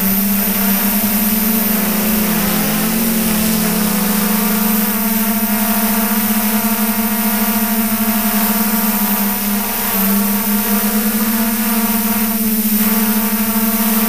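Multirotor camera drone's electric motors and propellers humming steadily, heard close from the drone's own onboard camera; the pitch wavers and dips briefly about two seconds in and again around ten seconds in as the throttle shifts.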